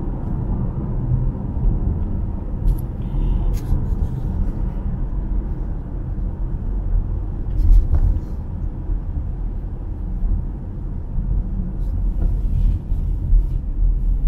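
Steady low rumble of a car driving, engine and tyre noise on the road heard from inside the cabin, with a few faint ticks now and then.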